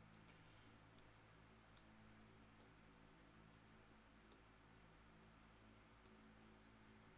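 Near silence with faint computer mouse clicks, about five, one every one and a half to two seconds, over a low steady hum.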